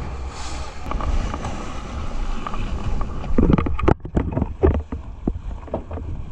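A small boat motoring across open sea: a steady low engine drone with wind on the microphone. From about three seconds in comes a run of irregular knocks and thumps.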